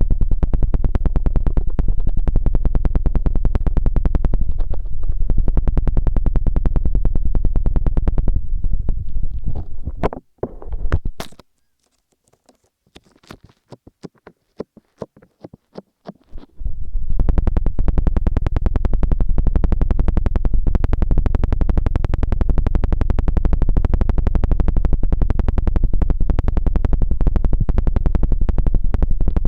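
ASMR ear massage on a microphone: fingers rub the mic's ear in rapid, rhythmic strokes, close-up, with a heavy low rumble. The rubbing stops about ten seconds in, leaving a few faint clicks, and starts again about seven seconds later.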